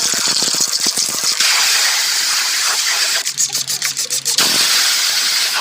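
High-pressure cleaning spray hissing loudly and steadily. About three seconds in, it breaks into a quick run of short spurts for about a second, with a low motor hum underneath, then runs steadily again.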